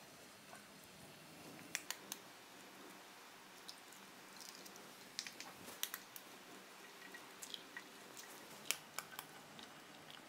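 Faint, scattered crackles and ticks over a low hiss: food frying gently in hot oil on the stove.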